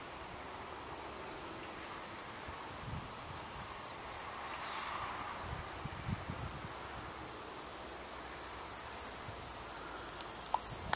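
Crickets chirping: a high-pitched pulsing trill repeating evenly at a few pulses a second, with a few faint low thumps around the middle.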